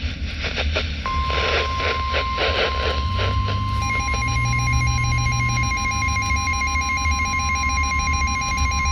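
NOAA Weather Radio broadcast: radio static crackles, then about a second in the steady 1050 Hz warning alarm tone starts, signalling that a warning message follows. About four seconds in, the Midland WR-300 weather radio's own alert starts over it, a rapid warbling electronic beep.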